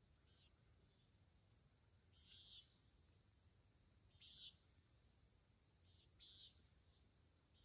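Near silence with a faint, short, high-pitched chirp from an animal, repeating about every two seconds, three times, over a faint steady high hum.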